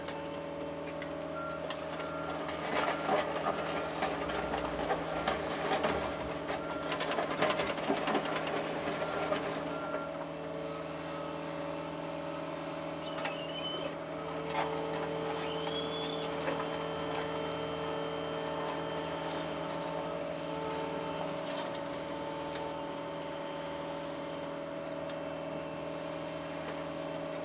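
John Deere 75 excavator's diesel engine running steadily as the machine digs. A busy spell of rattles and scrapes runs through the first ten seconds, and two short rising whines come a little later.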